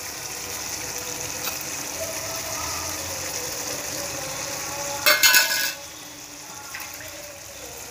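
Fish pieces sizzling in a simmering spiced curry in a pan, a steady hiss. A little after five seconds in comes a short, loud clatter, and the sizzle is quieter after it.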